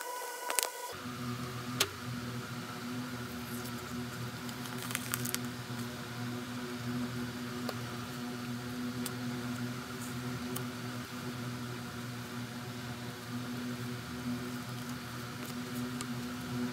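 Paper sticker labels being handled and shuffled: light rustling and a few scattered clicks over a steady low hum.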